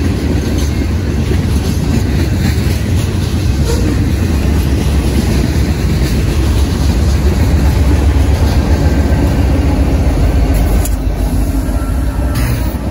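Union Pacific freight train passing close by: boxcars rolling over the rails with a steady heavy rumble and occasional clanks. Near the end the train's mid-train diesel locomotives come alongside.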